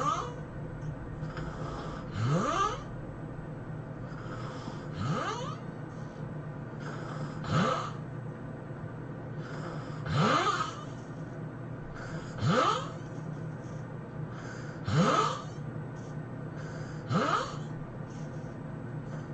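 A person snoring loudly and regularly, one short snore about every two and a half seconds, each rising in pitch as it goes.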